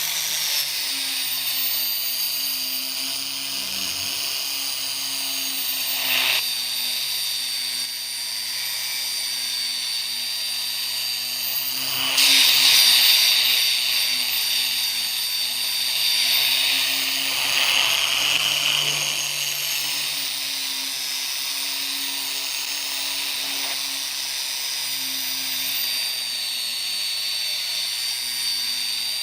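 A small electric power tool running steadily with a high whine and hiss over a low hum. It gets louder for a couple of seconds about twelve seconds in.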